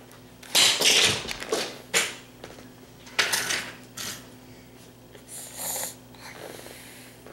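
A toddler's small metal fork thrown to the floor, clattering, followed by several lighter clinks and knocks over the next few seconds.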